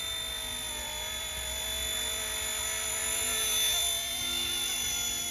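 Small-scale RC ERA C189 MD500 electric RC helicopter in flight: a steady high-pitched motor and rotor whine, wavering slightly in pitch and loudness about four seconds in.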